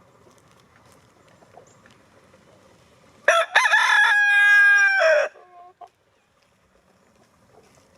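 A rooster crows once: a single loud crow about two seconds long, starting a little before halfway and ending with a short trailing tail. Faint hen clucking underneath.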